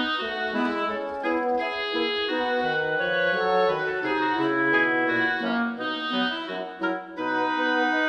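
Instrumental background music of sustained melody notes, with a low rapid pulse underneath that drops out about halfway through.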